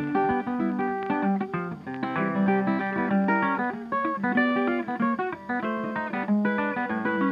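Background music led by a quickly picked acoustic guitar.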